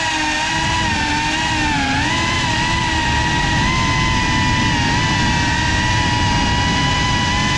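GEPRC Cinelog 35 cinewhoop's electric motors and propellers whining steadily over a rough low rumble. The pitch dips and recovers briefly about two seconds in as the throttle changes.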